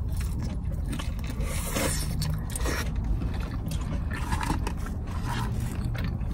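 Scraping and rustling as someone handles and eats French fries, over a steady low rumble.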